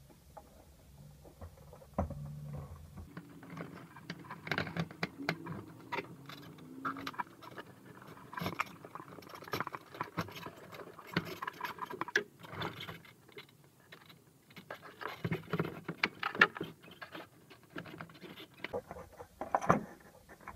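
Handling noise from a Honda fuel pump module being fitted into the fuel tank opening: irregular plastic clicks, knocks and rustling as it is pushed and worked into place. It will not seat in the opening.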